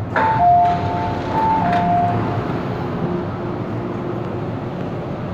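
MTR M-Train passenger doors opening at a station: a two-note electronic door chime alternating high and low for about two seconds, with the clunks of the doors, then the train's steady hum.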